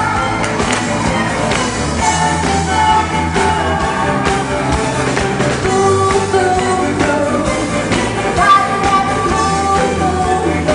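A song playing: a sung melody over a band with a steady beat.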